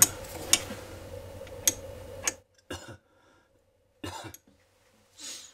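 Open-end wrench clicking against the metal compression fitting of a 3D printer extruder's PTFE tube connector as the nut is tightened hard, four sharp clicks in about two and a half seconds. After that the sound drops out, with two short rustling bursts in the second half.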